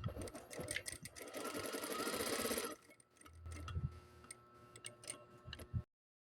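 Juki industrial sewing machine running a short burst of fast, even stitches about a second in, lasting about a second and a half, with scattered clicks from handling the machine before and after.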